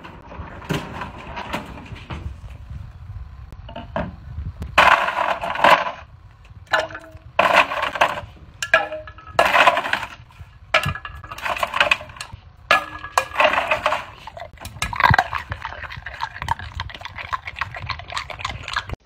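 A dog crunching and clinking ice cubes from a freezer's ice bin, in repeated bursts about a second long.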